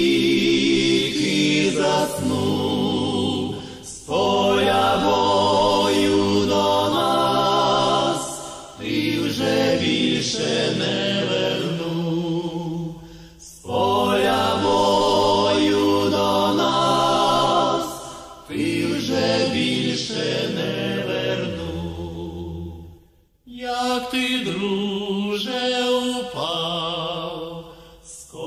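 Slow, solemn vocal music, a choir or chant-like singing, in long sung phrases with a wavering vibrato and short breaks between them.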